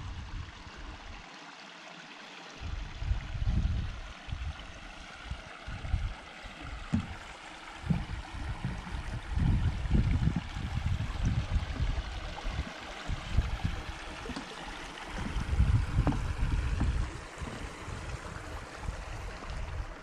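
Wind buffeting the microphone in irregular low gusts over a steady rushing hiss.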